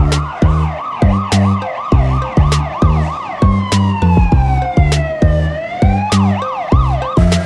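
Electronic emergency-vehicle siren yelping, its pitch sweeping up and down about three times a second. About three seconds in it switches to one long falling wail, then rises and goes back to the fast yelp near the end. Under it runs background music with a steady beat.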